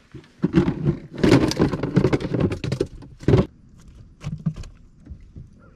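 A burst of rattling and knocking from handling inside a fishing boat, lasting about three seconds, with a sharp knock near its end, followed by a few single soft knocks.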